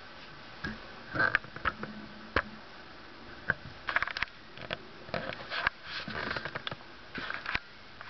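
Handling noise from a tripod-mounted camcorder being adjusted and re-aimed: irregular clicks, knocks and short scrapes close to the microphone.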